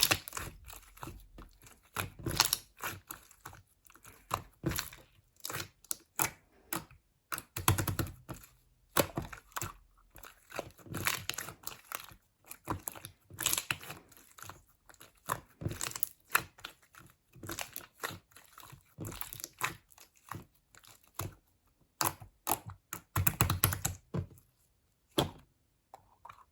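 Close-up handling sounds: irregular crinkling and tearing with many light clicks and taps, coming in uneven bursts with short pauses.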